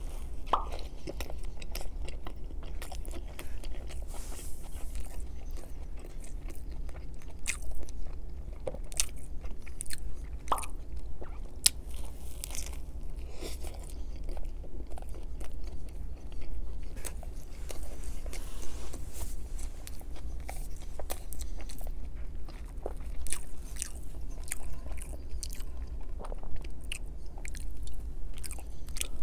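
A man biting into and chewing an Angus bacon cheeseburger with lettuce and tomato: irregular short clicks of chewing all through, over a steady low hum.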